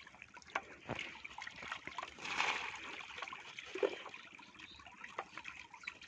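Shallow water trickling with small scattered splashes, and a brief louder splash about two seconds in.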